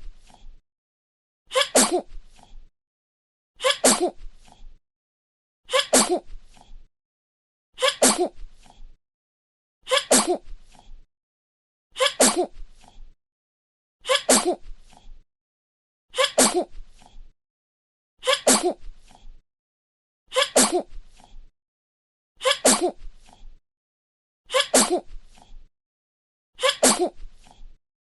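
A baby sneezing, the same short sneeze repeated about every two seconds, each a quick breath in followed by a sharp sneeze.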